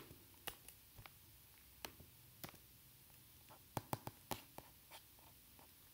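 Faint, scattered clicks of a computer mouse selecting text, about a dozen in all, with a quick run of three just before four seconds in, over near-silent room tone.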